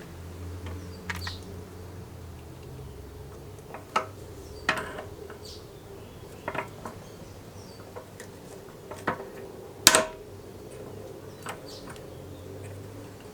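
Irregular light metal clinks and taps, as of metal parts or tools being handled and set down, about eight in all with the sharpest near the end, over a faint steady low hum.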